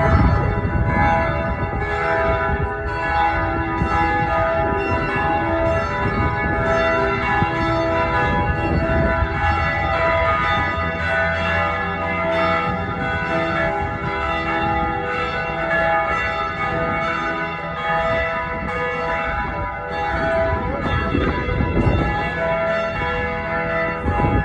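Church bells ringing: a continuous run of strokes in quick succession, each tone ringing on into the next so the pitches overlap.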